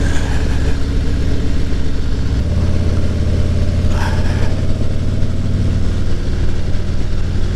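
Motorcycle engine running at riding speed over wind noise. About two and a half seconds in, the engine note drops to a lower pitch and grows louder.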